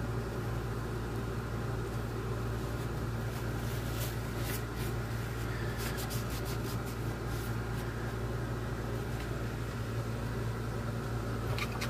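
Steady low electrical or mechanical hum, with faint light rubbing and scraping sounds in the middle and near the end as wood filler is worked and wiped off a wooden radio cabinet.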